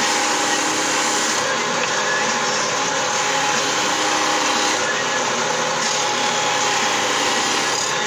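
Bench-mounted electric stone-cutting circular saw running steadily, its water-fed blade cutting through stone slabs.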